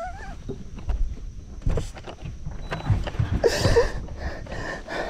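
Irregular knocks and thumps as a man moves about on a fishing boat's deck, with his excited gasping breaths, one drawn out into a wavering whimper about three and a half seconds in, over wind rumble on the microphone.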